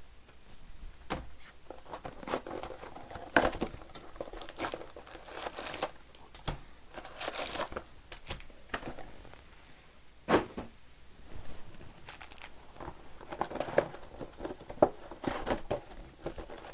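Plastic wrapping on trading card boxes and packs crinkling and tearing as they are ripped open by hand, in irregular rustles with a few sharp clicks.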